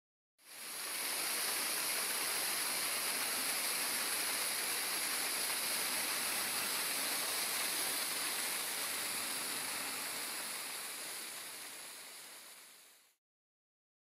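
Waterfall on a mountain stream, water rushing steadily; it comes in just after the start and fades away near the end.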